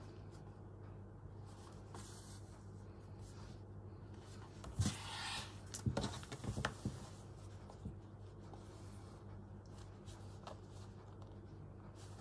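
Quiet handling of fabric scraps on a work surface: a short rustle about five seconds in, then a few light taps and clicks, over a steady low hum.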